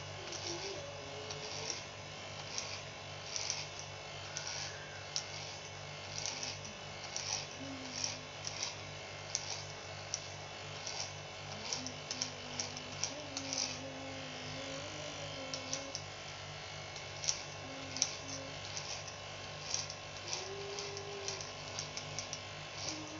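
Electric hair clippers running with a steady hum as they shave a head down to a buzz cut, with short crisp bursts about once a second as the blades are pushed through the hair.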